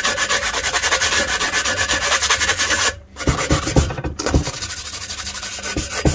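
An abrasive sanding block is rubbed quickly back and forth along a 7/16-inch steel axle rod, cleaning burrs and filings off a freshly drilled bolt hole. The strokes stop abruptly about three seconds in, followed by a few light knocks and softer rubbing.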